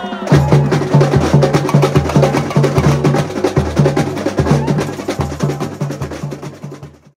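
Samba bateria playing: surdo bass drums keep a steady beat a little over twice a second under a dense rattle of snare drums and small hand percussion. It fades and cuts off just before the end.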